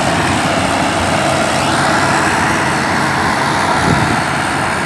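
Tractor diesel engine running hard under heavy load as it strains to pull a fully loaded trolley that is barely moving, a steady, loud, noisy drone.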